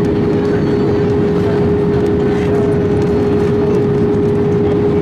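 Airbus A319 cabin noise on approach, heard inside the cabin by the wing: a loud, steady roar of engines and airflow with a steady droning tone running through it.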